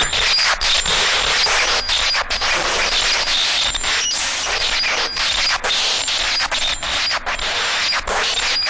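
Cartoon electricity sound effect: a loud, dense electrical crackling and sparking, unbroken except for brief dips every second or so.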